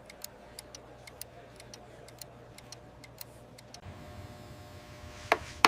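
Scattered light clicks at irregular intervals over a faint steady low hum, with one louder click near the end.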